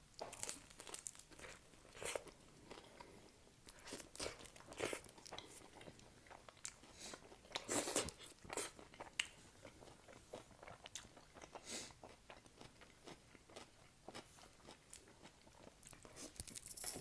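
Close-miked chewing and biting of a shawarma wrap: irregular crunches and wet mouth clicks, with a louder cluster about halfway through.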